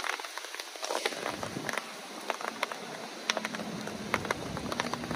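Rain falling and dripping onto surfaces, with many sharp, irregular drop ticks over a steady patter. A low rumble runs underneath from about a second in.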